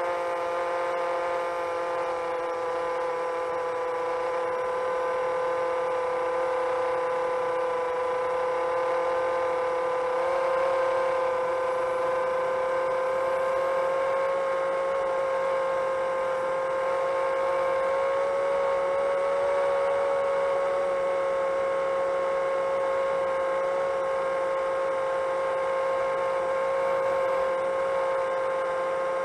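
Seven-inch long-range quadcopter's motors and propellers whining steadily in cruise flight, with the pitch shifting slightly a couple of times as the throttle changes.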